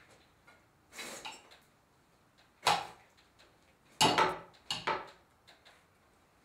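Metal fork clattering and scraping against a plate in a few quick jabs: a softer scrape about a second in, a sharp clatter near the three-second mark, then the loudest run of hits and scrapes from about four to five seconds in.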